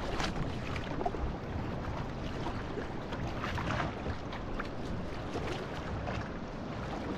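Outrigger canoe (va'a) being paddled: paddle blades splashing into the water every second or so over a steady wash of water along the hull.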